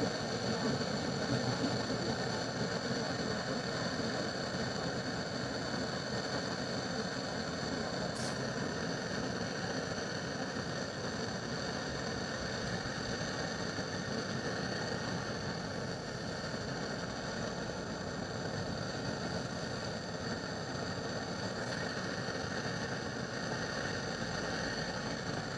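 Butane torch burning steadily with a continuous hiss.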